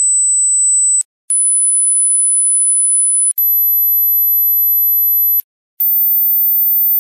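Pure, very high-pitched sine test tones of a mosquito hearing test, each held steady for about two seconds and each a step higher than the last. One tone ends about a second in, then three more follow with short breaks between them, climbing toward the upper limit of human hearing.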